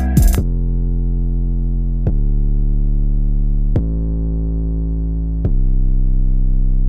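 Instrumental outro of a hip-hop track: the drums and hi-hats cut out just after the start, leaving a muffled low synth bass and chord held with the highs filtered off, changing note about every second and a half.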